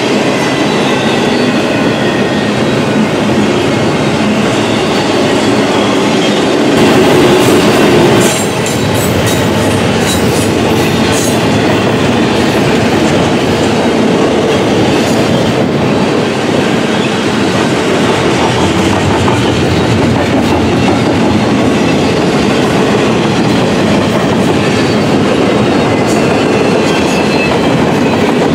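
Double-stack intermodal freight train rolling past: a steady rumble of steel wheels on rail, with clicking as the wheels run over rail joints. It is briefly louder about seven seconds in.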